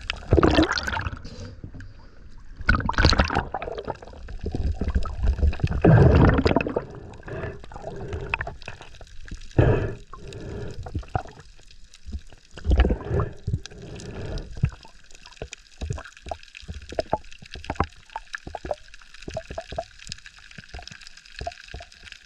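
Water bubbling and gurgling as heard underwater, with loud surges every few seconds in the first half. Later comes a run of short, sharp clicks and crackles.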